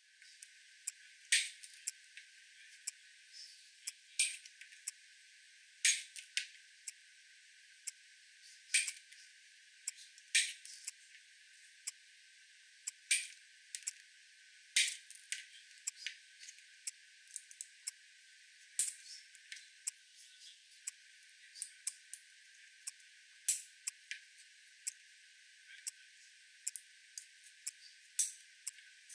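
Irregular sharp clicks and snaps from a hand-held cable-stripping tool and a plastic push-in junction box as flex cable is stripped and its cores are pushed home, over a faint steady hiss. The loudest clicks come every few seconds, with lighter ones between, and the sound is thin, with no low end.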